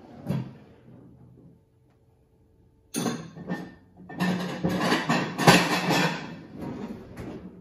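White ceramic plates clinking and knocking together as one is taken out of a lower kitchen cabinet. The clatter starts about three seconds in and is loudest in the middle, with a sharp knock near its peak.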